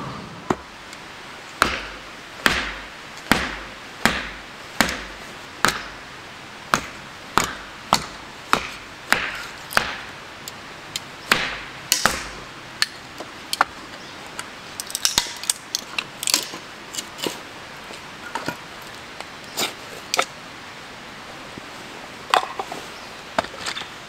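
Chopping: about fifteen evenly spaced sharp strikes, roughly one every 0.7 seconds, then sparser, lighter knocks and clicks in the second half.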